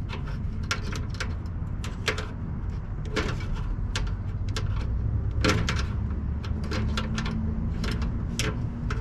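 Short clicks and light taps of wire terminals and capacitors being handled in an air conditioner's electrical compartment, over a steady low background rumble.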